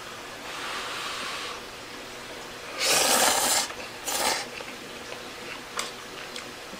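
Eating thick yakisoba noodles: a soft hiss about a second in, then two short, loud noisy bursts around three and four seconds in, and a few light clicks near the end.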